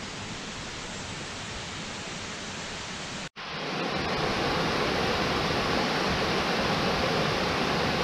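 Steady rushing of West Burton Falls (Cauldron Falls), a small waterfall pouring into a plunge pool. It is fainter at first, then after a brief dropout about three seconds in it is close and louder.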